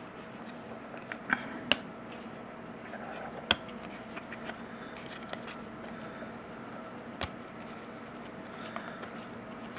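Light handling noises from trading cards and their packs: a few sharp clicks and faint rustling over a steady low hum.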